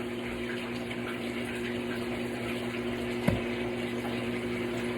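Portable twin-tub washing machine running with a steady motor hum while water rushes out through its drain. A single short knock about three seconds in.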